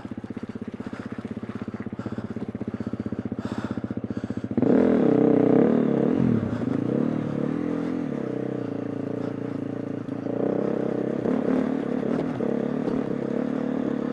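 KTM 350 EXC-F dirt bike's single-cylinder four-stroke engine running at low revs, then about four and a half seconds in the throttle opens and the revs rise and fall under load. About ten seconds in the revs pick up again.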